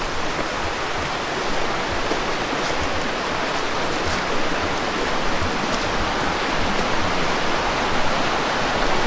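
Creek water rushing steadily, an even hiss of flowing water.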